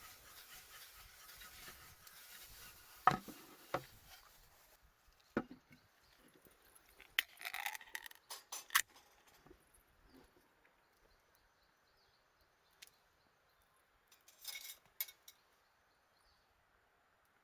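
Scattered sharp knocks and clinks of small hard objects being handled, with a couple of short rustles.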